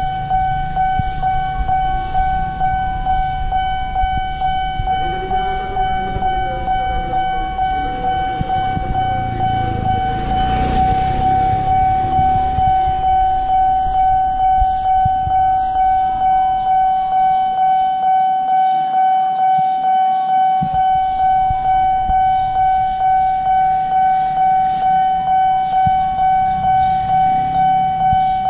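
Railway level-crossing warning alarm ringing: a steady ringing tone with a repeated strike about every three-quarters of a second, sounding while the barrier is down ahead of an approaching train.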